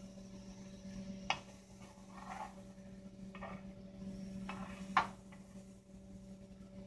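Grilled ham and cheese sandwich sizzling softly in a skillet, with two sharp clicks, one about a second in and one near five seconds.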